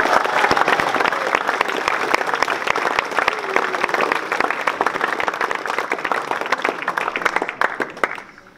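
Audience applauding, a dense patter of many hands clapping that dies away about eight seconds in.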